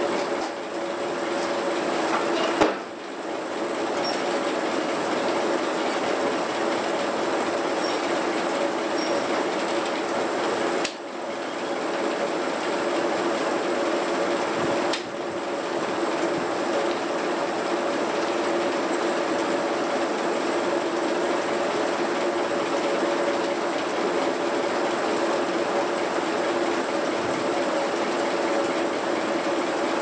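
Antique sawmill's belt-drive power unit engine running steadily at a constant pitch, with a click and three brief dips in level.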